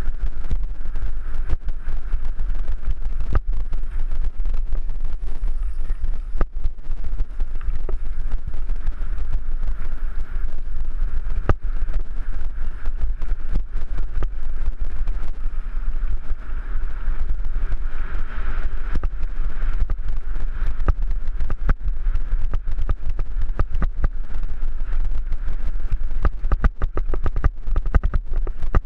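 Mountain bike descending a loose gravel trail, heard through a helmet-mounted GoPro's microphone: heavy wind buffeting on the mic, with frequent sharp clicks and rattles as the bike jolts over the stones.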